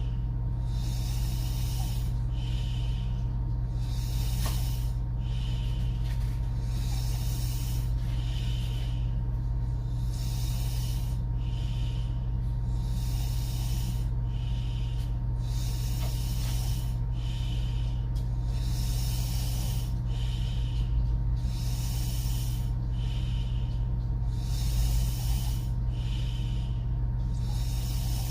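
A woman snoring through an open mouth: raspy breaths that swell and fade every second or two, over a steady low hum.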